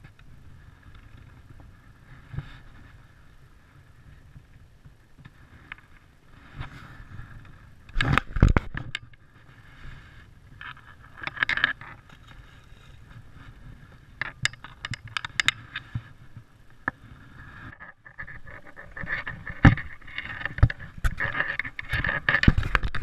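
Scrapes and knocks from someone moving about on a rocky lake shore, the loudest cluster about eight seconds in, then dense rustling through tall grass and reeds near the end.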